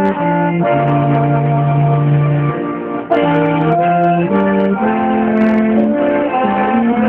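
Brass ensemble with slide trombones playing a hymn in chords: several notes held together and moving in step, with a long low note held about a second in.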